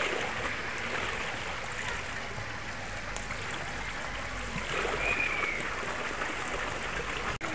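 Steady rush of running water from a stream or cascade, a constant even noise. A short faint high call is heard about five seconds in.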